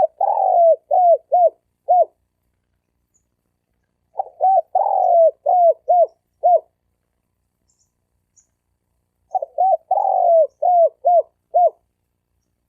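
Male spotted dove cooing: three repeated phrases, each of about six notes with one longer slurred note early on and shorter dipping notes after it, coming about every four to five seconds with silence between.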